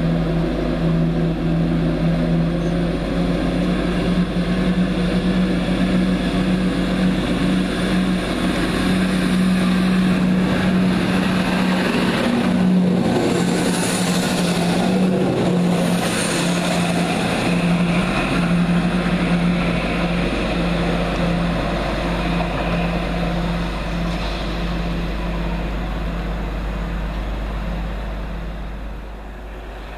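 Class 170 Turbostar diesel multiple unit's underfloor diesel engines running with a steady hum as the train moves along the platform close by, fading as it draws away near the end.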